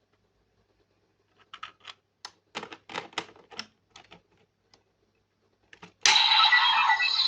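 Plastic clicks and rattles of a DX V Buckle toy being handled and fitted, then, about six seconds in, the toy suddenly plays its loud electronic sound effect.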